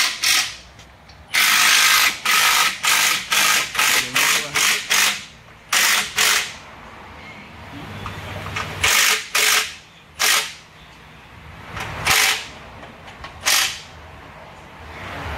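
Pneumatic wrench run in short bursts: a quick string of about nine bursts early, then single bursts a second or several seconds apart.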